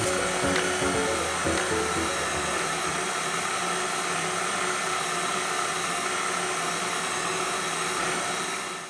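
KitchenAid Artisan stand mixer's motor running steadily at low speed, turning the ice cream maker attachment's dasher in the frozen bowl: an even electric whir. Background music fades out in the first few seconds, leaving the motor alone.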